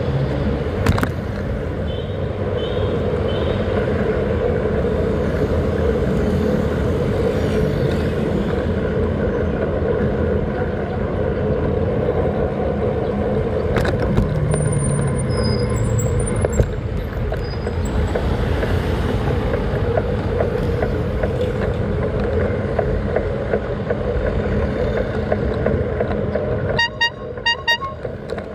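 Steady wind and road noise from riding along a city street, with traffic around. Near the end there is a brief run of quick ticks.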